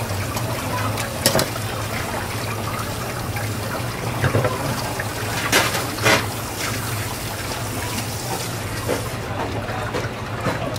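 Tap water running steadily onto a fish on a plastic cutting board, over a steady low hum, with a few sharp knocks as the fish is handled.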